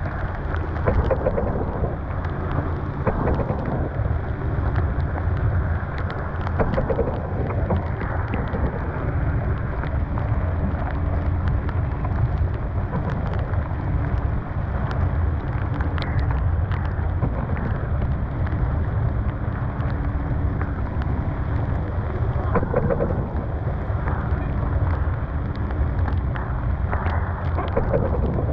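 Storm wind and rain on a sailboat: steady loud wind buffeting the microphone, with rain and spray ticking against the canvas dodger.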